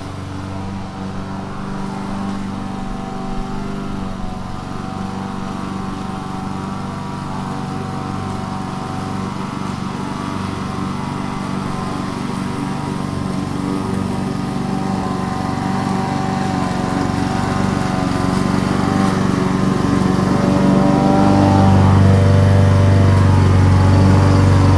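Lawn mower engine running steadily while cutting grass, growing gradually louder, with its low hum swelling about three-quarters of the way through.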